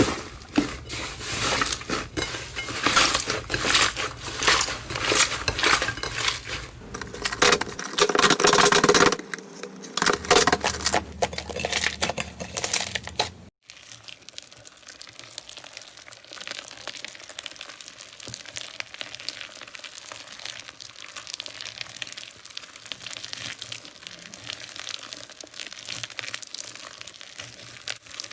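Slime being squeezed and stretched by hand, giving rapid, irregular crackling and popping. About thirteen seconds in it cuts to a quieter stretch of finer, steadier crackling.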